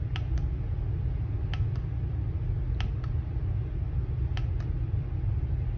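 Four double clicks of a QuietCool wireless wall controller's push-button, each a press and release, about one and a half seconds apart, as it is stepped through its settings toward off. Under them runs the steady low rumble of the whole house fan.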